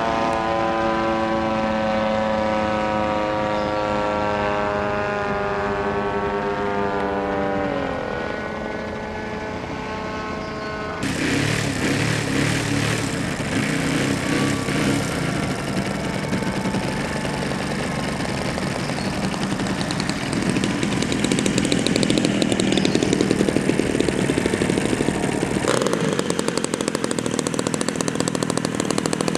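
Radio-control model airplane motor running in flight, a steady pitched tone that slides down as it throttles back about eight seconds in. After an abrupt change, it gives way to a rougher, noisier motor sound that grows louder.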